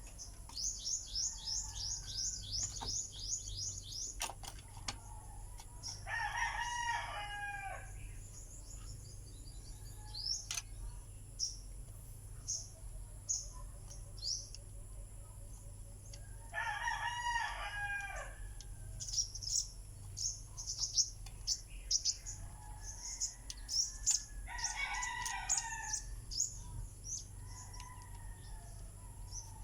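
A rooster crowing three times, each crow lasting about a second and a half, with small birds chirping in quick high runs throughout, over a steady low hum.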